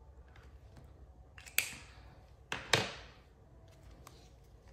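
Two crisp paper rustles about a second apart: banknotes and a cash envelope being handled as money is stuffed into the envelope.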